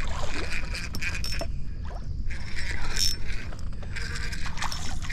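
Spinning reel being cranked while fighting a hooked crappie, a fine mechanical whirring and ticking, over a steady low rumble.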